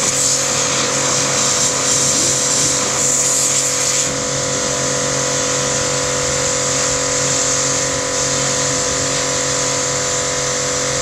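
Yodha YD 120 electric car pressure washer running steadily, its motor and pump giving a constant hum under a high hiss. The hiss lessens about four seconds in while the hum carries on unchanged.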